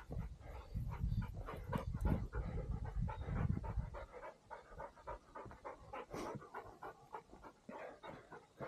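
Setter bird dog panting rapidly close by, mixed with scuffs and clicks of movement over rock. The sound is heavier for the first four seconds, then lighter.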